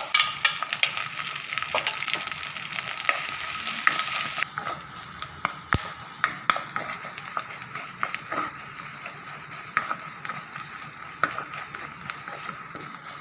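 Chopped shallots frying in hot sesame oil with mustard seeds, urad dal and curry leaves, sizzling loudly at first and easing off after about four seconds. A spoon stirs and scrapes the pan with sharp clicks throughout.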